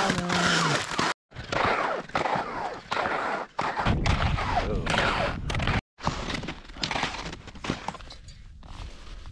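Crunching and scraping of boots and skis in snow, with gear-handling noise close to an action camera's microphone. Wind buffets the microphone for a couple of seconds near the middle, and the sound breaks off abruptly a few times.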